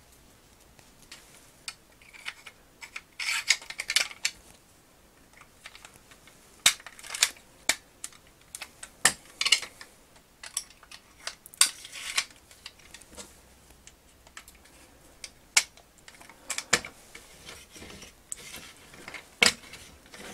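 Small rubber tyres being worked onto plastic wheel hubs and the wheels pushed back onto a Kenner M.A.S.K. Thunderhawk toy car: irregular sharp plastic clicks and snaps with short stretches of rubbing and scraping between them.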